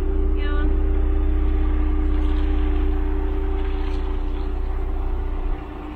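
Jeep Cherokee SUV engine idling with a steady hum and low rumble; the rumble drops away sharply about five and a half seconds in.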